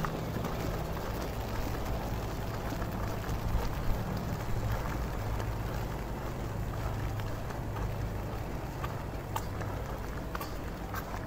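Rain falling on a city street, with a steady low engine hum of traffic and footsteps of someone walking through it; scattered sharp drips and taps.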